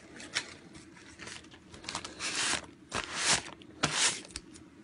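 Paper rustling and scraping in short, irregular strokes, with a few longer, louder rubs in the second half.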